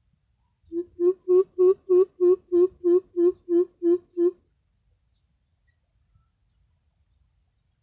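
Greater coucal call: a run of about a dozen deep, evenly spaced hoots, about three a second, the first one softer.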